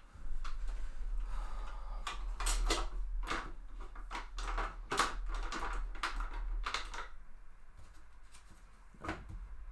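A run of irregular clicks and rustles, over a dozen in about seven seconds, over a low rumble, then one more click near the end.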